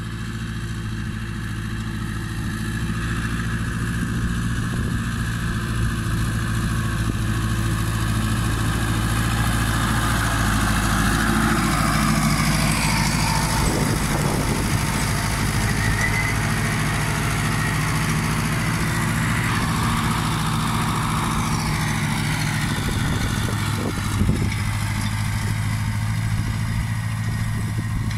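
Fortschritt ZT tractor's diesel engine working steadily under load as it pulls a stubble cultivator. It grows louder as the tractor passes close by about halfway through, then fades as it moves away.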